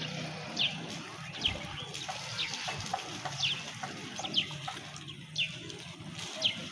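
A bird calling over and over in short, high, falling chirps, about one a second and often in quick pairs, over a low steady hum.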